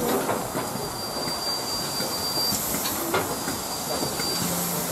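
LMS Stanier Black Five steam locomotive standing with a steady hiss of escaping steam, heard from close alongside, with a thin high whistle-like tone coming and going over it and a few light knocks.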